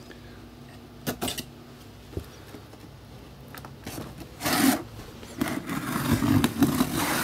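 Cardboard shipping box being handled and opened: a few light clicks, then rubbing and scraping of cardboard, longest in the last two seconds.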